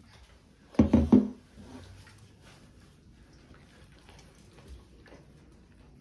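A dog licking an empty bowl clean on a plastic step stool: the bowl knocks loudly against the stool several times in quick succession about a second in, then faint licking and small clinks follow.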